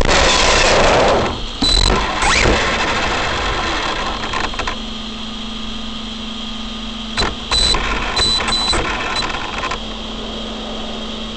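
Arrma Big Rock V3 electric RC monster truck heard from on board: motor whine rising and falling with tyre noise as it drives and pulls up in the first couple of seconds. Then it sits with a steady hum, broken by a few short bursts of noise a little past the middle.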